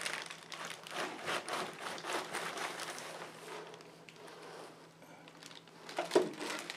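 Plastic wrapping and cardboard packing rustling and crinkling as the boxed bandsaw is handled, fading about halfway through, then a single sharp knock about six seconds in.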